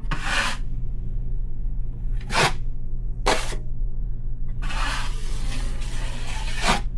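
Drywall knife scraping joint compound across a drywall patch: three short swipes, then one longer scrape about five seconds in, over a steady low hum.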